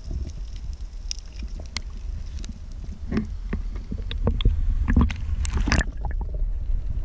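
Snorkelling camera recording in the water: a steady low rumble of water moving over the housing, with scattered clicks and crackles. A brief rush of splashing water a little over five seconds in, as the camera sloshes at the surface.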